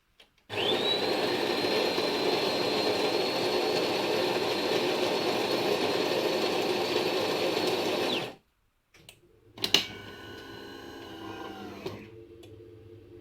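Bean-to-cup coffee machine's motor running steadily for about eight seconds, with a thin whine that rises as it starts and drops as it stops. A click follows, then a quieter hum that slides down in pitch.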